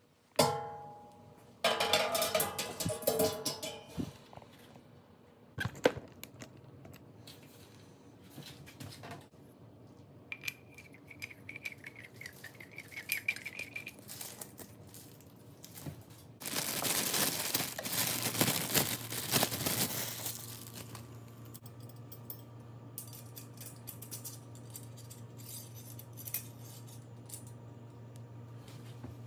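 Steel grill parts being handled: a wire cooking grate clanks and rings against the steel firebox several times, followed by lighter rattling, clinking and scraping as the rotisserie spit and its forks are fitted. A steady low hum sets in about two thirds of the way through.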